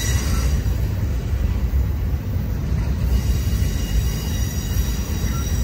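Double-stack intermodal well cars of a freight train rolling past, a steady low rumble of wheels on rail. From about three seconds in, thin high steady tones of wheel squeal join it.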